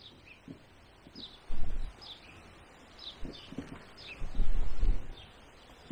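Wind buffeting the microphone in two strong low gusts, with a bird repeating short falling chirps between them.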